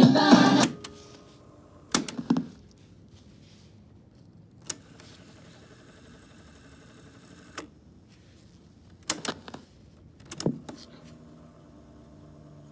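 Music playing back from the cassette stops suddenly about half a second in. It is followed by a run of mechanical clicks and clunks from the piano-key transport buttons of a vintage Citizen JCTR141K double cassette boombox, with a faint whirr of the deck's mechanism between the clicks and a low hum near the end.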